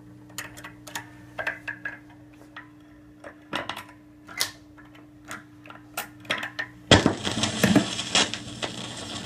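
1960 Voice of Music model 307 record changer cycling after being switched on: a string of clicks and clatters from the changer mechanism as the record drops and the tone arm swings over, over a steady low hum. About seven seconds in the stylus sets down, and the crackly surface noise of the lead-in groove comes through the speakers.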